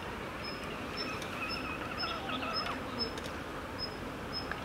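An insect chirping outdoors: short, high notes at one steady pitch, about twice a second, over a steady background hiss.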